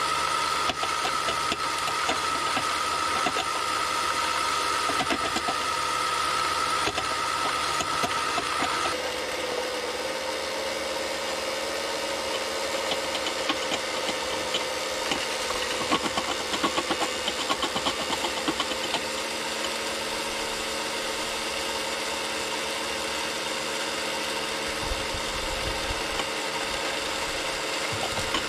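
RC scale construction machines running: a steady motor and hydraulic-pump whine over an engine-like drone, which drops to a lower tone about nine seconds in. In the middle there is a run of rattling clatters as gravel is loaded into the model dump truck's bed.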